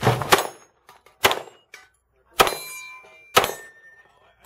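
Glock 17 9mm pistol firing about five shots at uneven intervals, the later ones followed by steel targets ringing.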